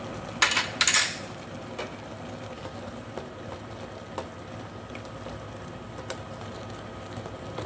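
Stew simmering in a stainless-steel pot on an induction cooktop, under a faint steady hum. There are two brief loud clatters about half a second and a second in. Then a ladle stirs through the stew with a few light clicks against the pot.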